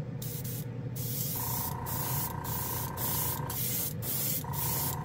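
Gaahleri Ace airbrush spraying paint: a hiss of air that starts just after the beginning and keeps cutting out for an instant as the trigger is worked in a stop-start way, over the compressor's steady hum. A steady whine runs alongside and drops out for under a second a little past halfway.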